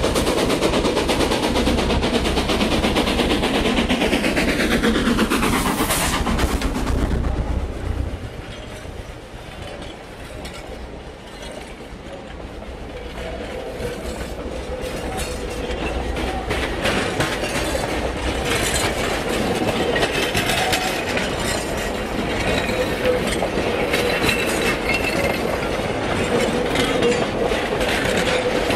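A small steam locomotive passes close by, loud for the first several seconds with a few falling tones. Its loaded freight wagons then roll past with a steady rumble, repeated clicks of wheels over rail joints and a faint steady whine, growing louder toward the end.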